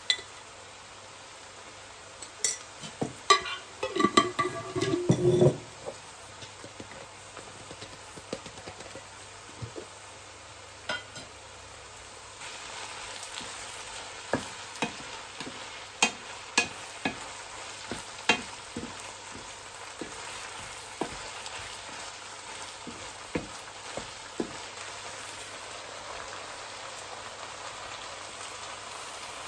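Food frying in a pan: a run of clinks and knocks of a utensil against cookware a few seconds in, then a steady sizzle that starts about twelve seconds in, with scattered pops and spits.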